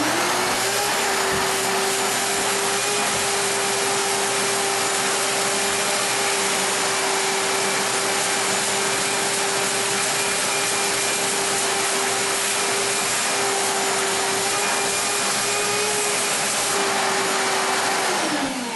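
Wet/dry shop vacuum running steadily while sucking spilled water off the floor. Its motor whine rises as it is switched on at the start, holds steady, then falls away as it is switched off near the end.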